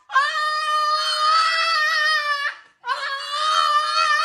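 A black French bulldog crying out in two long, high-pitched wails, with a short break between them about two and a half seconds in.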